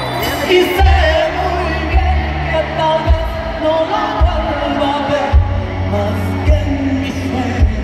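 Live pop-rock concert heard from the audience: a woman sings into a microphone over a full band with horns, guitar and drums. A heavy kick drum hits about once a second under the vocal.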